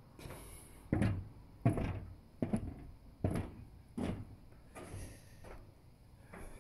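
Footsteps on steps: about seven evenly spaced thuds, a little under a second apart, each dying away quickly.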